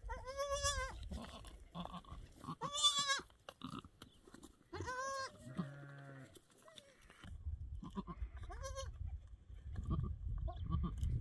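Newborn goat kid bleating: five short, high cries that rise and fall in pitch, spaced a couple of seconds apart, with one deeper, steadier call about six seconds in.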